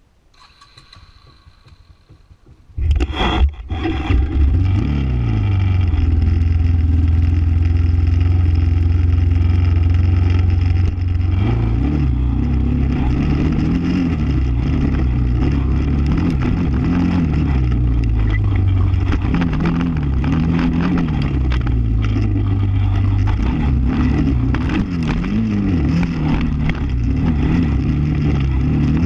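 ATV engine starting up about three seconds in, then running with its pitch rising and falling again and again as the throttle is opened and eased off along a dirt trail.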